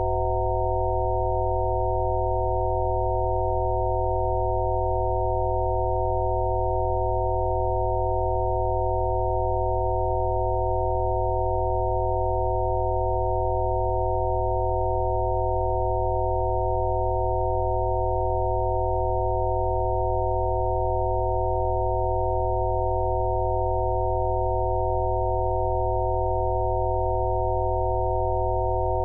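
Electronically generated Rife-frequency sine tones: several pure pitches held together in a constant, unchanging drone over a deep low hum.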